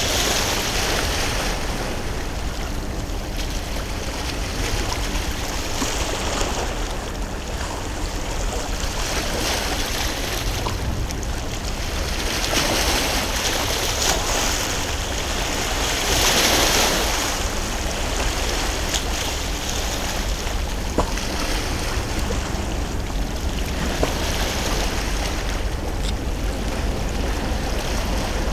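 Harbour water washing against the quay, the splashing swelling and easing every few seconds over a steady low rumble.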